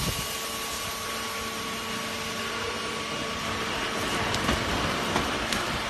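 Foam compression and roll packing machine running, rolling a compressed foam mattress in plastic film: a steady hiss over a low machine hum, with a few faint clicks.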